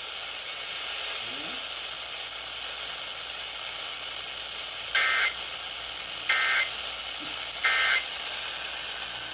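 Steady radio static hiss, then three short bursts of Emergency Alert System SAME digital data tones about a second and a half apart. This is the end-of-message signal that closes the flash flood warning broadcast.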